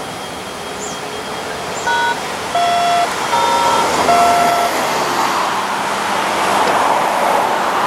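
Diesel locomotive's multi-chime air horn sounding four short blasts in a row, about two seconds in. Then a broad rushing noise swells as the train draws nearer.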